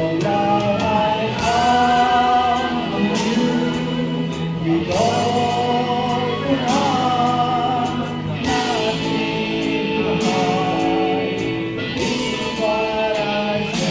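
A woman singing karaoke into a microphone over a recorded backing track, in long, wavering held notes.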